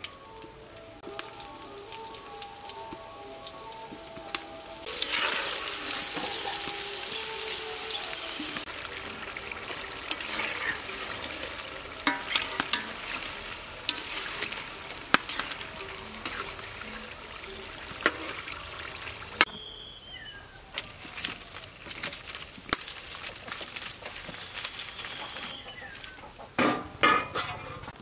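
Wontons deep-frying in hot oil in a wok: steady sizzling that swells loudly about five seconds in, with scattered clicks and scrapes of a wire skimmer against the wok.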